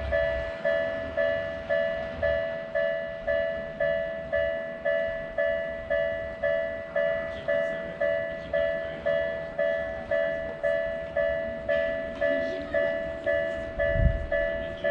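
Japanese railroad crossing's electronic warning bell ringing, a two-tone strike repeating evenly about twice a second, each ring fading quickly. A low rumble comes in near the end.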